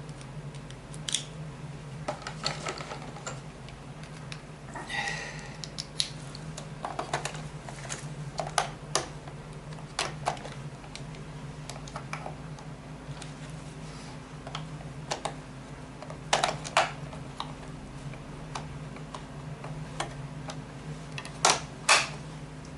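Irregular plastic clicks and knocks as clean rubber brush rolls are handled and fitted back into an upturned Roomba robot vacuum's cleaning head, over a steady low hum.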